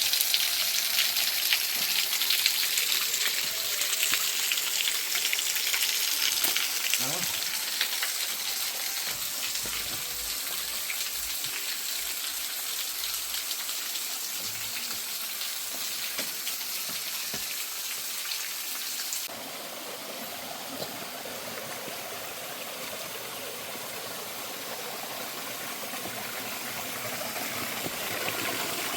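Rushing water of a mountain waterfall, a steady hissing rush with fine crackle. About two-thirds of the way through it changes abruptly to a deeper, fuller rush.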